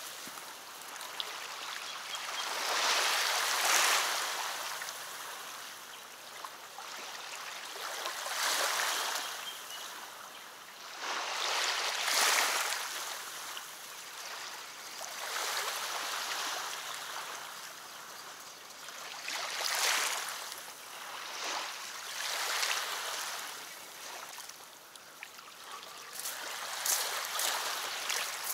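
Small waves washing against a sandy riverbank in slow swells, one every three to four seconds. Near the end come a few footsteps on the bank.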